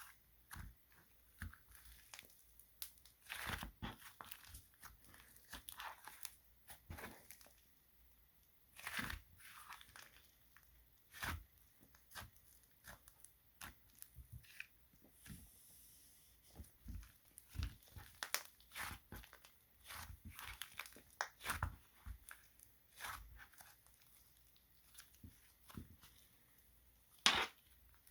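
Crinkly material being handled and torn by hand: irregular short crinkling and tearing noises with scattered sharp clicks, the loudest one near the end.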